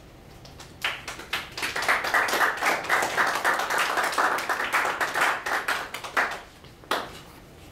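Small audience applauding: clapping starts about a second in, thickens for several seconds, tapers off, and ends with one last clap near the end.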